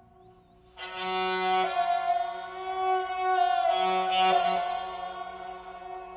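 Dilruba, a bowed Indian string instrument, playing a long bowed melody that comes in strongly about a second in, slides in pitch a couple of times and fades near the end, over a faint steady drone.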